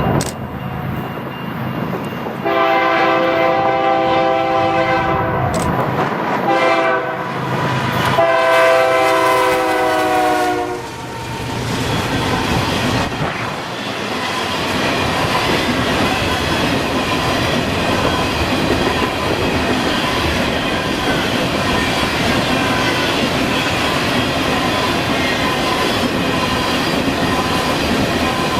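Locomotive multi-chime air horn blowing a crossing sequence: a long blast, a short one and a final long blast ending about 11 seconds in. After it, the train passes with a steady rumble and clatter of wheels on the rails.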